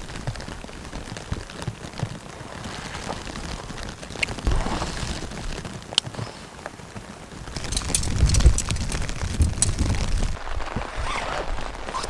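Steady rain with a low buffeting rumble that swells from about eight seconds in, and scattered crinkly rustles of a rucksack being handled.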